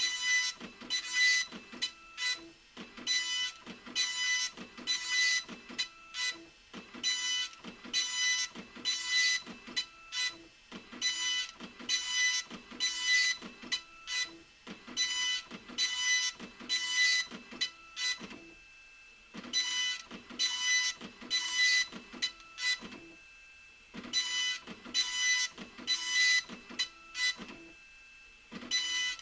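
Epson LQ2550 24-pin dot-matrix printer printing: the print head buzzes across the page in short passes, about two a second, with a few pauses of about a second between runs, one about two-thirds of the way in and another near the end.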